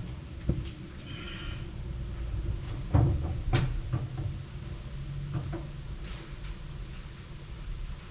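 Scattered light knocks and clicks of hand tools and small metal parts being handled, with the sharpest knock about three and a half seconds in.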